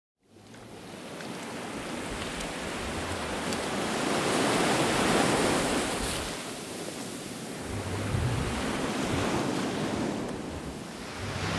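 Ocean surf washing onto a sandy beach, fading in from silence and swelling twice, loudest about five seconds in, with a low wind rumble.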